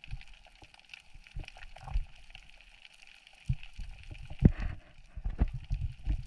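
Underwater gurgling and bubbling during a spearfishing dive, with irregular low thumps. The loudest thump comes about four and a half seconds in, and the thumps come thicker toward the end.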